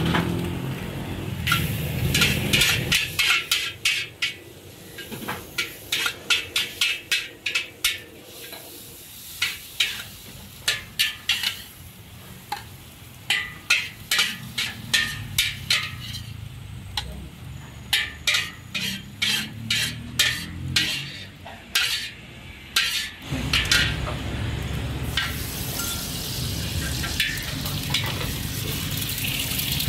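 A metal spatula scraping and clanging in a wok in a long run of sharp strokes as fried koay teow is tossed and scooped out. About 23 seconds in a steady sizzle takes over as lard goes into the hot wok and an egg fries.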